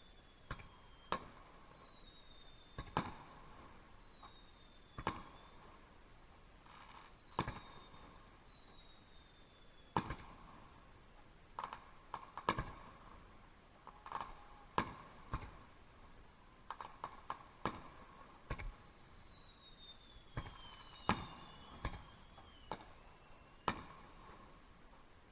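Distant fireworks: irregular sharp bangs of shells bursting, about twenty in all, with several whistles that slide down in pitch for a second or two between them.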